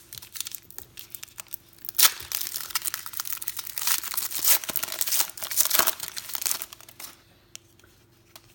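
Trading-card pack wrapper being torn open and crinkled, with a sharp tear about two seconds in. The crinkling stops about seven seconds in.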